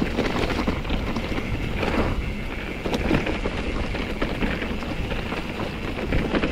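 Wind buffeting the microphone as a steady low rumble, with irregular rattles and knocks.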